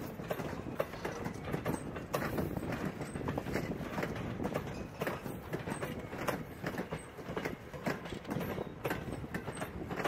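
Passenger coaches rolling slowly past on jointed track, their wheels clicking and knocking irregularly over the rail joints.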